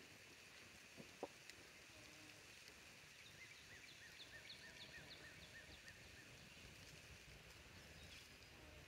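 Quiet outdoor ambience with a faint background hiss. From about three to six seconds in, a bird calls a quick string of short, high notes, about five a second. Two faint clicks come about a second in.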